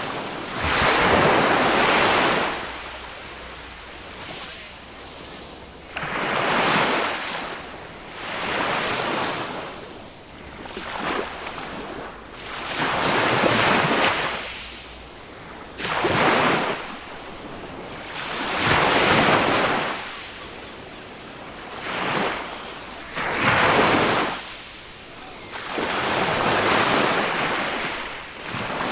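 Small sea waves breaking on a sandy beach, each surge of surf swelling and fading every few seconds, over a constant wash, with some wind on the microphone.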